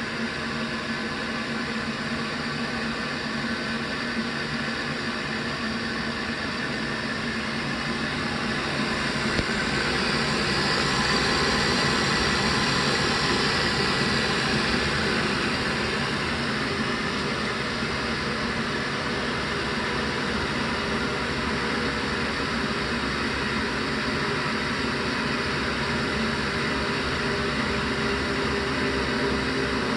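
Navien CH-240 gas condensing combi boiler making a steady, loud airplane noise on start-up, a whooshing roar with humming tones in it that swells about a third of the way through and then settles. The noise is new this heating season.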